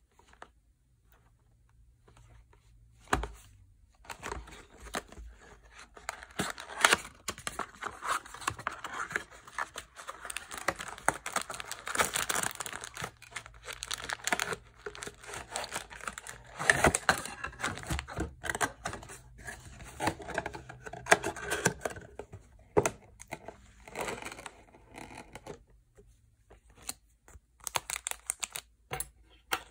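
Wrapping on a Yu-Gi-Oh! booster box being torn and crinkled by hand: a single knock about three seconds in, then a long stretch of crackling and tearing with scattered clicks that thins out to separate clicks near the end.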